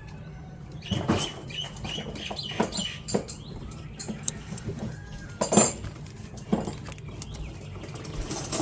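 Scattered clicks and knocks of tools and metal parts being handled around an engine's belt and pulleys, with a few short high squeaks about one to three seconds in; the sharpest knock comes a little past halfway.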